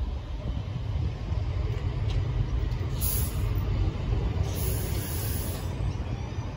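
A Sheffield Supertram, a Siemens-Duewag articulated tram, approaches and runs past close by with a steady low rumble. Two short high hisses come about three seconds in and again from about four and a half to six seconds in.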